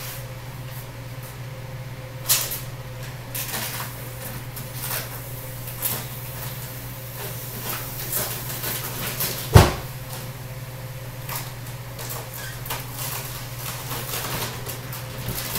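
Scattered knocks, rustles and scrapes as a flat-packed sofa and its packaging are handled in an opened cardboard box, with one sharp thump about ten seconds in. A steady low hum runs underneath.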